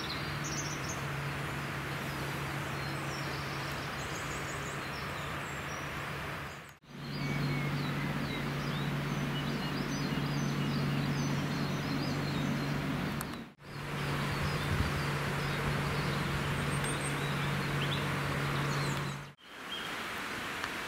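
Outdoor ambience: small birds chirping over a steady background noise with a low hum. The sound drops out for a moment three times.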